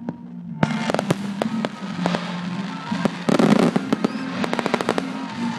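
Fireworks going off in a quick run of sharp bangs and crackles, thickest about three seconds in, then a rapid string of pops near the end, with music playing underneath.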